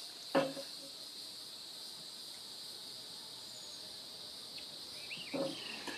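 Insects chirring steadily in one high, even pitch band. A short sharp sound comes about half a second in and a brief low sound near the end.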